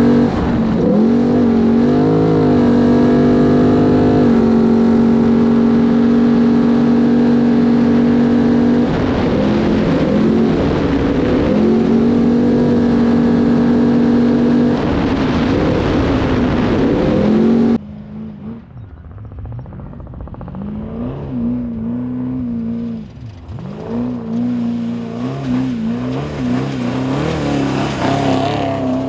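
Unlimited Trophy Truck engine running hard at high, steady revs at race speed, heard on board, with a few brief dips in pitch as the throttle eases. About 18 s in it cuts to a quieter engine sound that rises and falls and grows louder near the end.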